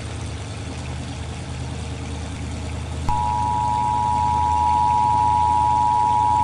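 A low steady hum. About three seconds in, an Emergency Alert System attention signal starts suddenly: two steady high tones sounding together as one harsh, unbroken alarm tone.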